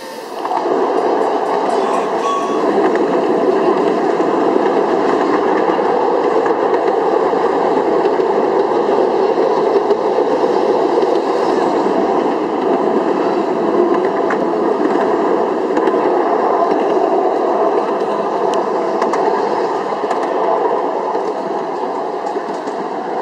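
Ride-on miniature railway train running along its track, heard from on board a passenger car: a steady rolling rumble of small wheels on the rails, starting about half a second in.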